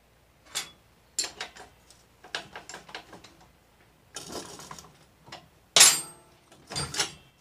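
Metal clinks, taps and short rattles as the Honda XR100's rear axle is worked out through the hub and swingarm, with a louder sharp clank about six seconds in and two more knocks near the end.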